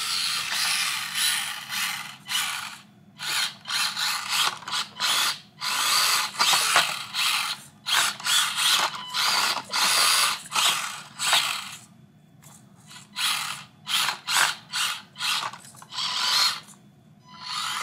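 Axial SCX24 1/24-scale RC crawler's small electric motor and gears whirring in many short stop-start bursts as the truck crawls up and over a pair of shoes under throttle.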